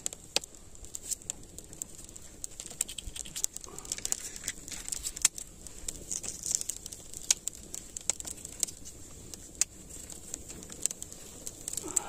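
Wood fire crackling, with irregular sharp pops and clicks over a steady high hiss.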